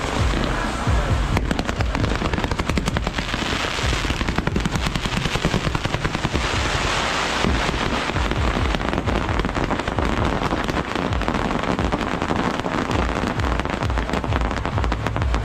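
Firecrackers going off in a rapid, continuous rattle of many bangs a second, with deeper booms underneath, set off as a salute.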